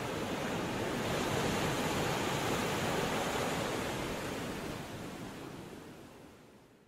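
Steady rush of sea waves breaking, fading away over the last few seconds.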